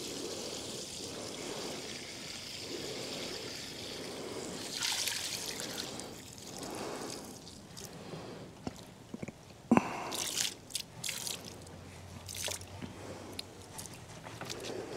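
Liquid trickling and dripping, with a sharp knock about ten seconds in and a few smaller clicks after it.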